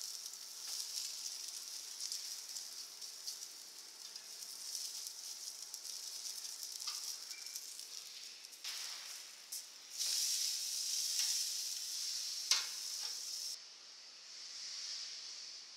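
Pork neck sizzling on a charcoal grill: a steady crackling hiss with scattered small pops. It grows louder about two-thirds of the way through, with one sharp pop, then drops back near the end.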